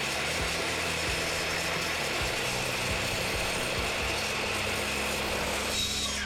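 Miter saw running steadily as it cuts through a 2x6 board that is hard to get through. The board is twisted or warped, so it binds on the blade and kicks back.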